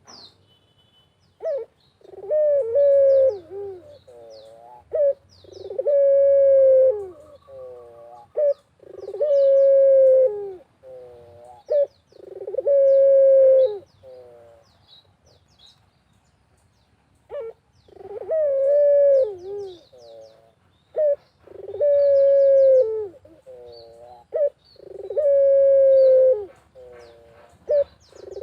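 Barbary dove (puter) cooing: long, drawn-out coos with wavering rolling notes between them, in two runs of about four coos with a short pause near the middle. Small birds chirp faintly in the background.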